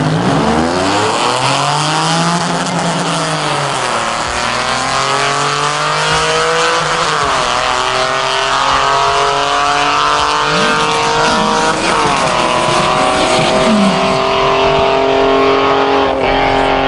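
Two drag cars launching at full throttle and accelerating away down the strip. The engine pitch climbs, then drops at each upshift, several times over, before levelling off as the cars pull into the distance.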